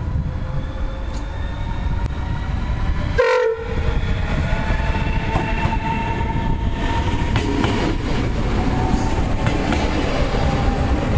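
NSB Class 72 electric multiple unit running along the platform close by: steady wheel and running rumble with a faint electric whine. A short horn blast comes about three seconds in, and the wheels click over rail joints in the later seconds as the carriages pass.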